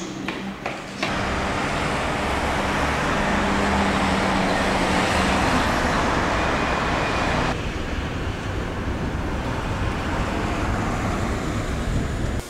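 Busy city road traffic: cars passing with a steady broad rush of road noise. It starts abruptly about a second in and thins suddenly about halfway through.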